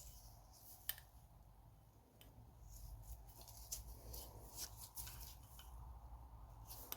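Near silence with faint clicks and light rustling of small engine parts being handled on the bench, one sharper click about a second in.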